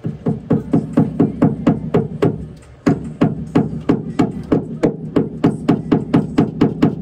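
Background music: a quick, even run of struck, pitched notes, about four a second, pausing briefly near three seconds in.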